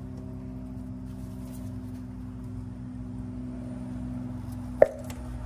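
A steady low hum with one sharp metallic clink near the end: a hand tool knocking against metal in a car's engine bay.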